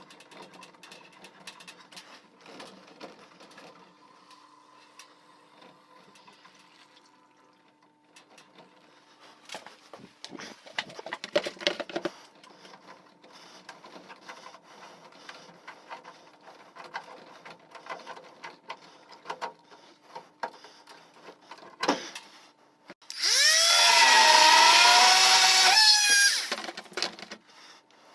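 Clicks and scraping from hand work, then a small power tool motor running for about three seconds near the end, its pitch rising at the start and wavering.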